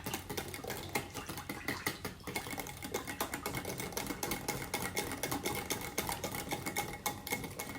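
Wire whisk beating a liquid mixture in a bowl: a fast, steady run of light clicks and taps as the wires strike the bowl.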